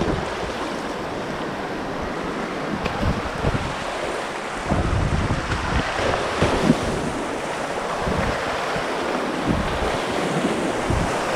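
Rushing whitewater of class II river rapids, a steady roar of moving water, with wind buffeting the microphone in irregular low thumps.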